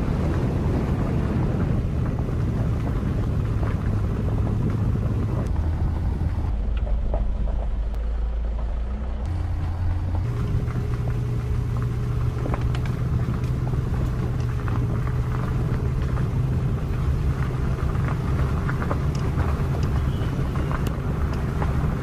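SsangYong Rexton SUV driving along an unpaved forest road: steady low engine and road rumble, with the engine note dropping about a third of the way in and rising again near the middle.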